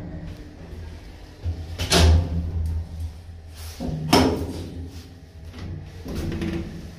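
Rade Končar lift at a floor: a low hum from the car, then a heavy clunk about two seconds in as the car doors open, and a sharp metal clank about four seconds in as the hinged landing door is unlatched and pushed open.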